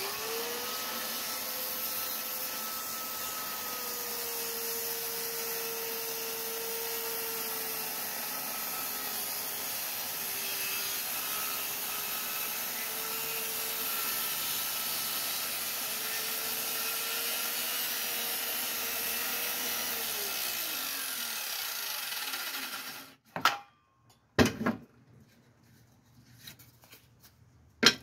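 Corded circular saw starting up and ripping a 2x4 lengthwise, a steady motor whine under the noise of the blade cutting wood, the pitch dipping briefly midway as the blade loads in the cut. About 20 seconds in the motor winds down and the sound stops, followed by a few sharp knocks.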